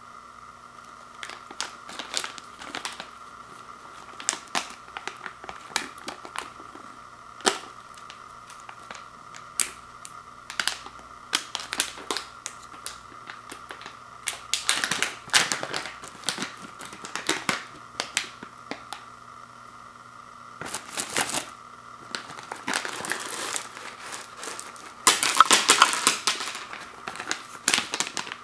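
Plastic gum pouch crinkling and clicking in the hands as it is worked and torn open. Near the end the loudest stretch comes as the gum pellets are poured out with a rattling crinkle.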